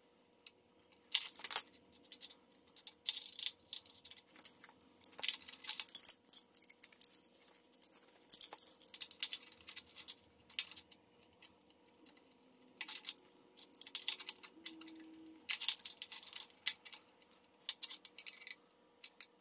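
Metal hand tools and engine parts clinking and rattling in irregular clusters every second or two, during removal of the front crank pulley parts from a Mercedes M119 V8.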